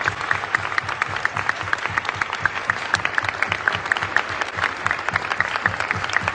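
A concert hall audience applauding, with one person's hands clapping close by in a steady, fast beat over the crowd's clapping.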